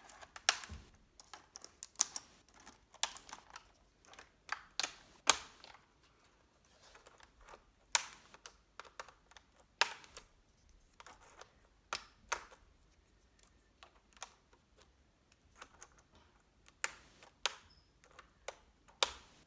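Irregular sharp plastic clicks and taps as a Samsung R525 laptop keyboard is pried out of its retaining clips with a piece of plastic.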